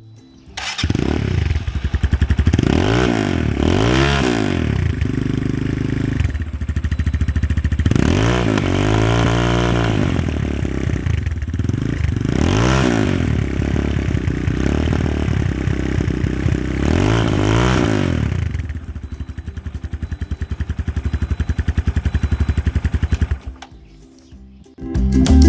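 Dinamo R2 250cc motorcycle engine being revved in about five blips, one held longer, then settling to idle. The sound stops near the end.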